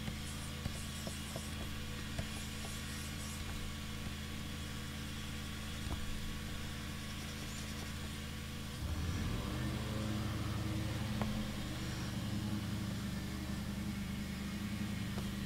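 A steady low machine hum that shifts and grows a little louder about nine seconds in. Faint light ticks, like a stylus tapping and stroking a drawing tablet, sound through the first few seconds.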